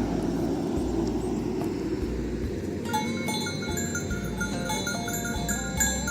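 Background music: stepped bass notes throughout, joined about halfway through by a bright, bell-like melody of short stepping notes, over a dense low rumbling noise.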